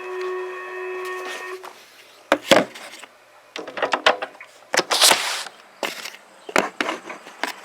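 A steady pager alert tone from a radio speaker cuts off about a second and a half in. It is followed by a string of short clicks and crackles.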